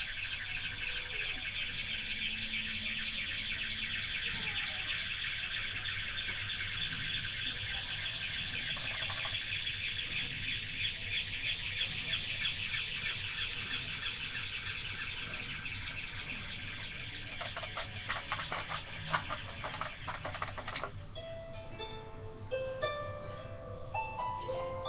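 A dense, steady chorus of high chirping birds fills most of the stretch. Near the end it gives way to a gentle plucked-string tune like a harp.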